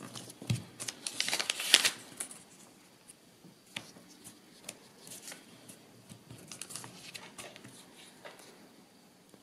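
Paper rustling and crinkling as fingers fold and press the edges of a paper cover over a cardboard board. There is a louder stretch of rustling between about one and two seconds in, then scattered small ticks and scrapes.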